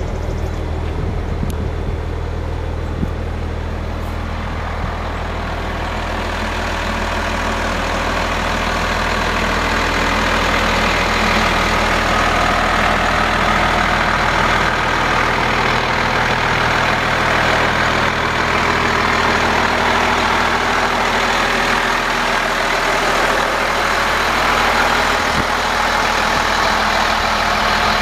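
Freightliner FL80 truck's diesel engine idling steadily, with a rushing noise that grows louder over the first ten seconds or so and then holds.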